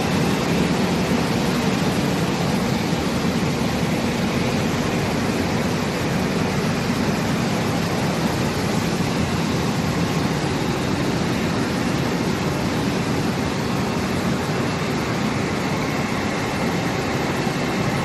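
Bubble washing machine for fruit and vegetables running: water spraying from rows of nozzles onto a tank churned into foam by air bubbling, making a steady rushing noise.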